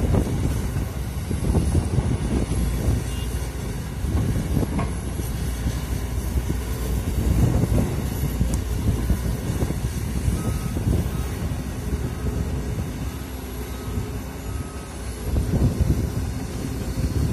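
Komatsu PC200 hydraulic excavator's diesel engine running as the machine digs and swings, a steady low rumble. A faint repeating beep sounds several times a little past halfway.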